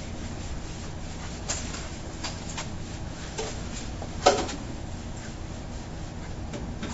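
Classroom room tone: a steady low hum with scattered faint clicks and knocks, and one brief louder sound about four seconds in.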